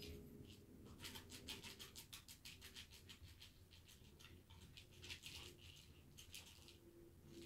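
Faint, rapid scratching and tapping of a cat's paws batting at a plastic ball-track toy with a furry spring-mounted mouse, starting about a second in and coming in quick irregular flurries.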